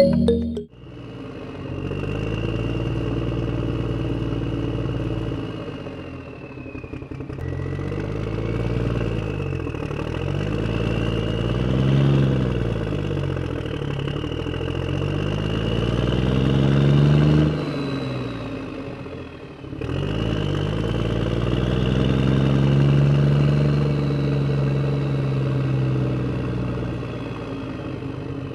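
A motor running with its pitch swinging up and down every few seconds, with a thin high whine over it. It breaks off abruptly about two-thirds of the way through, then carries on.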